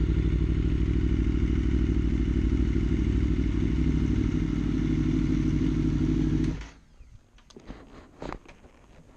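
2012 Aprilia Tuono V4 APRC's V4 engine, fitted with an aftermarket Austin Racing exhaust, idling steadily at an even pitch, then stopping abruptly about six and a half seconds in. A few light clicks and rustles follow.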